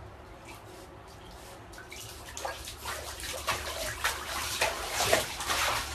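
Bathwater splashing and sloshing as a Shiba Inu moves about in a shallow tub, faint at first, then louder and busier from about two seconds in.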